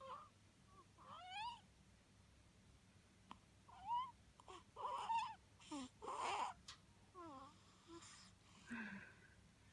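A cat making a series of short rising and falling mews and chirps, broken by a few short, noisy bursts of breath that are sneezes.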